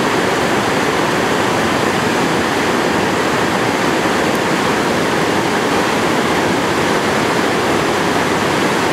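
Whitewater river rapid rushing over and around boulders: a loud, steady, unbroken rush of churning water.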